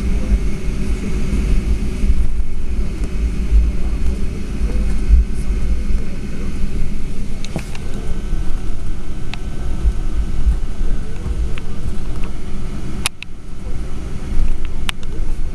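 Cabin noise of a Boeing 757-300 taxiing: a steady low rumble from the jet engines at taxi power and the wheels rolling over the pavement. A few sharp clicks come through about halfway in and near the end.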